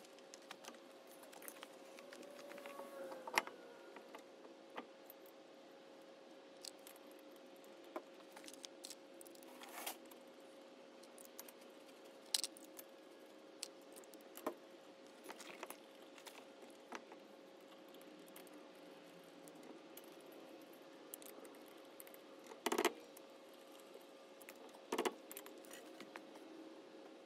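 Scattered metal clicks and clinks of lug nuts and hand tools as a car's road wheel is mounted on the hub and the nuts are threaded on by hand. Several louder clanks stand out, one a few seconds in and two close together near the end.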